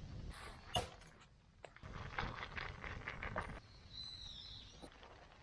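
A sharp knock about a second in, then about two seconds of rustling and scraping handling noise, and a short bird chirp near the end.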